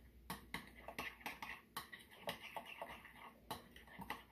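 Spoon clicking and scraping against a glass bowl while stirring a thick, dip-like mixture: light, irregular clicks, about three a second.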